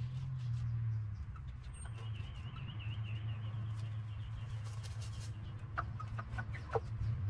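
Backyard hens clucking, with a quick run of short sharp calls near the end. A wavering high bird trill sounds for a few seconds in the middle, over a steady low hum.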